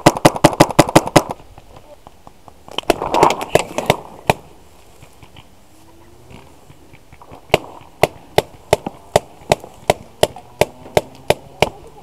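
Paintball marker firing strings of sharp pops: a fast string of about a dozen shots in the first second or so, a short burst about three seconds in, then a steadier string of about three shots a second through the second half.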